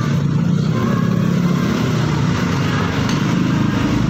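A small engine running steadily, its low pitch holding even throughout.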